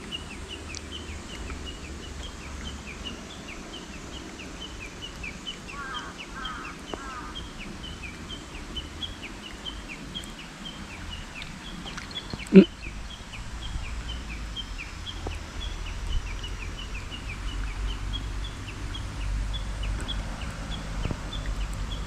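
Short high chirps from a calling animal, repeating evenly about three or four times a second. About halfway through there is one sharp, loud click, and a low rumble grows stronger toward the end.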